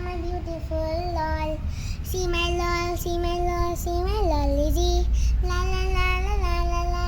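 A child singing a tune in long, held notes, with a couple of wavering slides in pitch near the middle and end.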